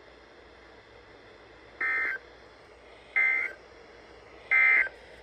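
Three short bursts of EAS/SAME digital data tones, a buzzy warble between two high pitches, about a second and a third apart. This is the End of Message code that closes an Emergency Alert System broadcast.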